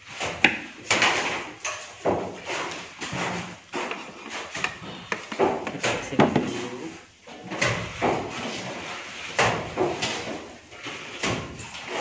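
Irregular kitchen handling sounds: a knife cutting on a cutting board, with knocks and scrapes as ingredients and the board are moved about.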